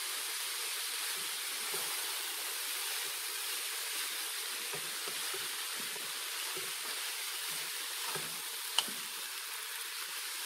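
Rice and chopped spinach sizzling in coconut oil in an electric cooker pot in stir-fry mode, turned over with a wooden spatula that scrapes the pot bottom now and then. A single sharp click is heard near the end.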